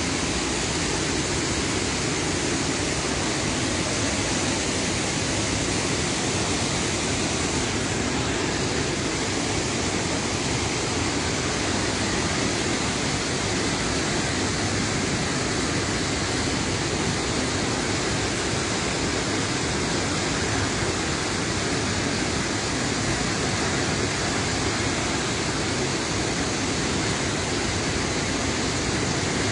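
Water pouring over the spillway of a full, overflowing dam: a loud, steady rush with no breaks.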